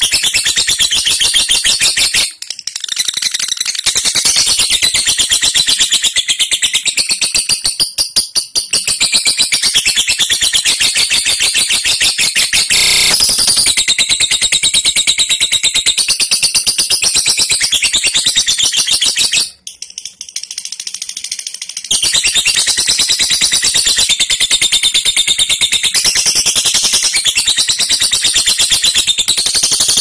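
Fischer's lovebird giving its long 'ngekek' chatter: a rapid, high-pitched run of many notes a second. It breaks off twice briefly, a couple of seconds in and again about two-thirds of the way through.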